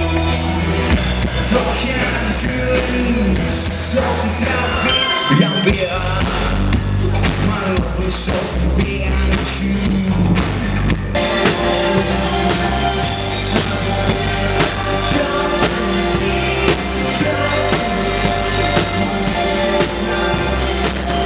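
Live rock band playing through a PA: electric guitars, bass guitar and drum kit with a singer's vocals. The bass and drums drop out briefly about five seconds in, then the full band comes back.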